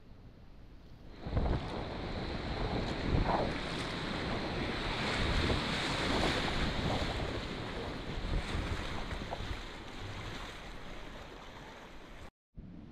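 Whitewater rapid rushing and splashing around a kayak as it paddles through, a dense noisy roar of water that swells up about a second in and stops abruptly near the end.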